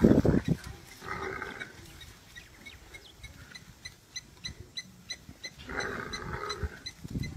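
Wild animal sounds: a loud low growl at the start, harsher calls about a second in and again near six seconds, and between them a run of short high chirps repeating about four times a second.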